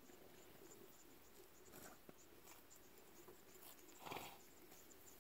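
Near silence: faint background with scattered tiny ticks and a brief soft rustle about four seconds in.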